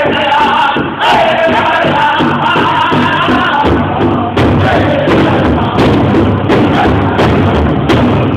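Pow wow drum group singing together over a steady beat on a big shared drum, about two beats a second, with the singers' voices wavering high above the drum.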